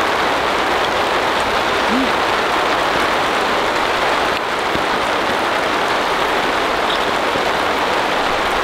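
Heavy rain pouring steadily onto a camping tarp: a loud, dense, even hiss that doesn't let up.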